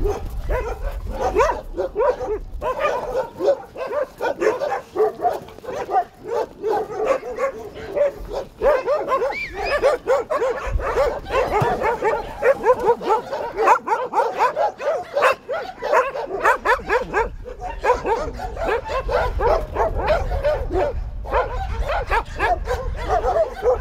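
A pack of dogs vocalizing together: many short yelps, whines and barks overlapping without a break.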